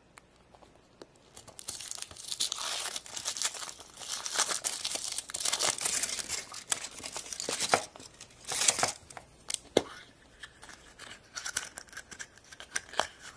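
Thin foil wrapper being peeled off a chocolate surprise egg, a dense crinkling and tearing for several seconds. After that come sparser crinkles and clicks as the egg is opened and a small wrapped packet is handled.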